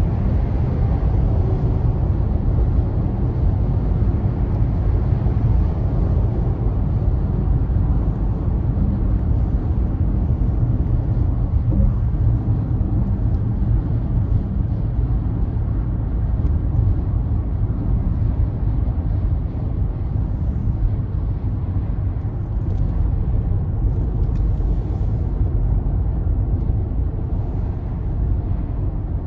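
Steady low rumble of road and engine noise inside a car cruising on a motorway.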